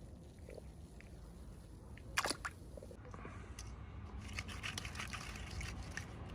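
Small toys and their plastic packaging being handled: one sharp click about two seconds in, then a run of small crackles and ticks.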